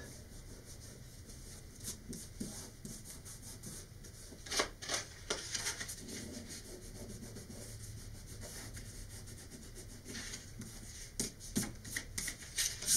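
Fingers rubbing and peeling a cardstock paper piece, working dried rubber cement off it: soft, uneven scuffing, with a few sharper paper rustles about four to five seconds in and several more near the end.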